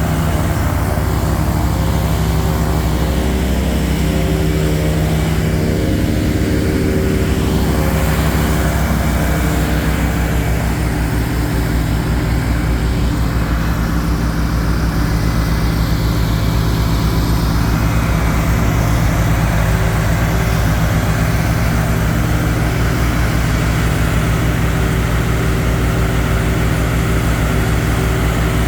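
Mahindra eMax 20 compact tractor's diesel engine running steadily, with the Bercomac snowblower attachment working.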